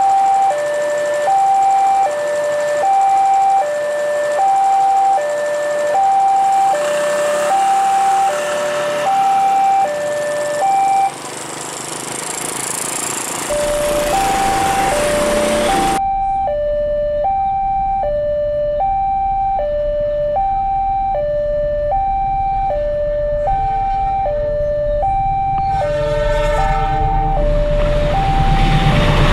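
Railway level-crossing warning alarm sounding an electronic two-tone signal, high and low tones alternating with about one pair every second and a half, which means a train is due and the barriers are down. It breaks off briefly near the middle and then carries on. Near the end an approaching train's running noise grows louder under the alarm.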